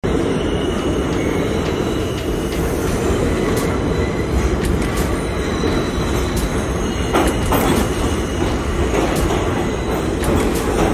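New York City Subway 6 train, R62A cars, pulling into an underground station. Its wheels on the rails give a loud steady rumble, with thin squealing tones and scattered clacks from the track.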